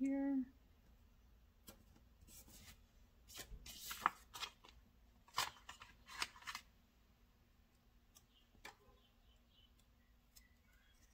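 Paper sticker sheets handled and stickers peeled and pressed onto planner pages: short dry rustles and crackles in several clusters through the middle, then only faint touches. A brief hummed voice sound right at the start.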